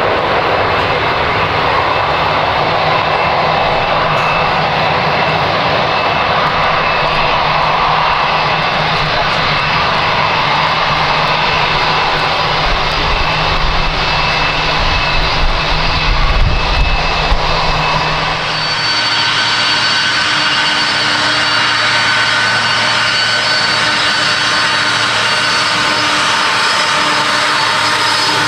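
Jet engines of a Condor Boeing 767-300ER on landing: a steady rush of jet noise, with a deeper rumble swelling about two-thirds of the way in. About 18 seconds in, the sound changes abruptly to a thinner engine noise with several steady whining tones.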